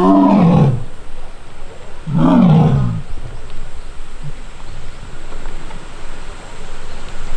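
Young Amur tiger calling twice, about two seconds apart, each call rising and then falling in pitch: the plaintive crying of a frustrated young tiger.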